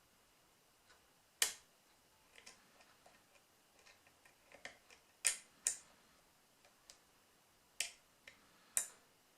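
Lock pick working the pin tumblers of a rim cylinder, making irregular small metallic clicks, with five louder sharp clicks spread through, as pins are set against tension.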